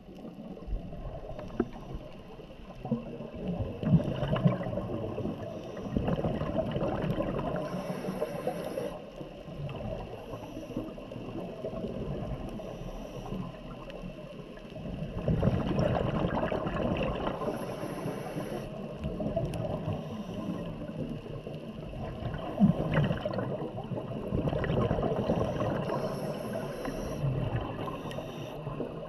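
Underwater sound of a scuba diver breathing through a regulator: exhaled bubbles gurgle in slow surges every several seconds, with short hissing inhalations between them.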